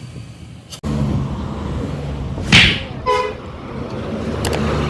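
Bus engine idling, with a loud short hiss about two and a half seconds in. It is followed at once by a brief snatch of a Basuri multi-tone 'telolet' horn, a few quick notes.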